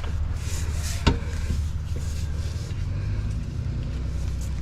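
A steady low mechanical hum, like an engine or motor running at a constant speed, with one sharp knock about a second in.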